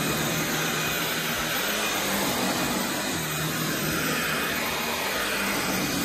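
LG CordZero A9 Kompressor cordless stick vacuum running steadily on turbo power, its floor head being pushed over carpet.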